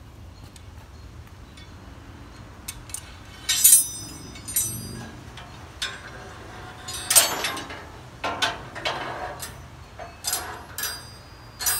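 Metal hanging hooks and a metal crossbar clinking and clanking against the uprights of an outdoor cooking rig as they are handled and fitted into place: irregular sharp clinks with short metallic rings, the loudest about three and a half and seven seconds in.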